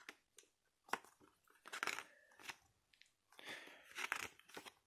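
Pages of a paper booklet being turned and handled by hand: a run of short papery rustles and crinkles, several in quick succession near the end.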